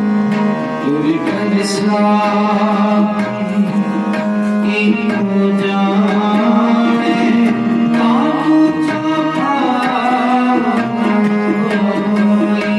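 Sikh kirtan: tabla strokes over a harmonium's held reed chords, with a singing voice gliding through the melody.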